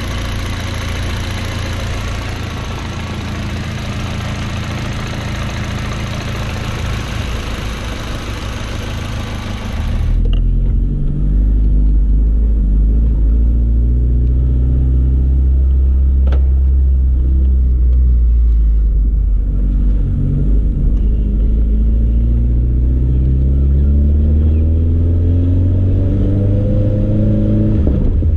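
VW 1.8T turbocharged four-cylinder engine idling for about ten seconds. Then, heard from inside the car, it pulls away under acceleration, its pitch climbing in several long rises that each drop back as it shifts gears.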